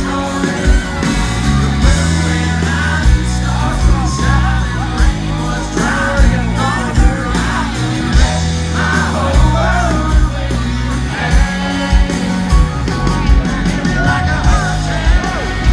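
Country rock band playing live at concert volume, with electric guitars, bass and drums on a steady beat under a sung lead vocal. The crowd yells along.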